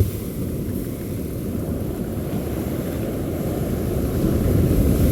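Wind buffeting the microphone over the wash of surf, a rough low rumble that grows gradually louder.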